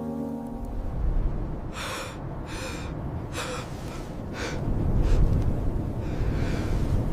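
Four or five ragged, gasping breaths about a second apart, over a steady low rumbling noise.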